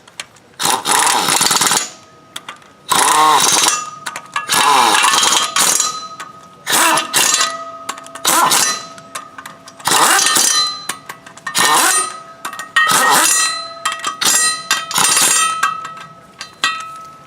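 Power wrench run in about ten short bursts of a second or so each, with a steady motor whine, driving in the thread-locked flex plate bolts on the crankshaft until they are snug.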